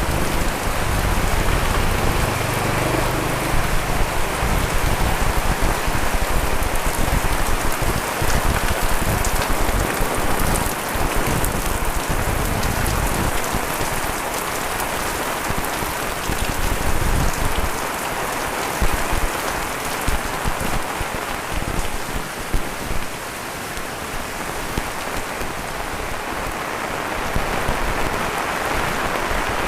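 Heavy rain pouring steadily, with an irregular low rumble that eases about two-thirds of the way through.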